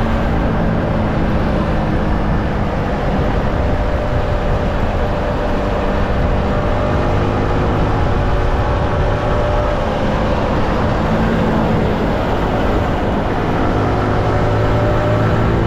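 Yamaha MT-15's 155 cc single-cylinder engine running steadily under way on the stock exhaust, with wind rush on the microphone. The engine note sinks into the wind noise for a few seconds in the middle and stands out again from about ten seconds in.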